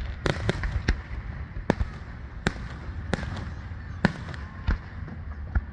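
Fireworks going off: a series of sharp, irregularly spaced bangs over a steady low rumble.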